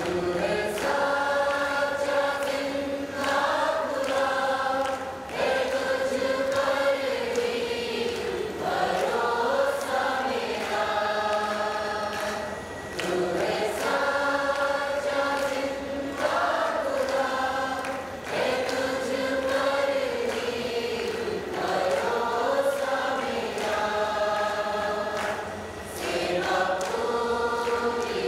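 A group of voices singing a worship hymn together in long held phrases, with a short break every few seconds.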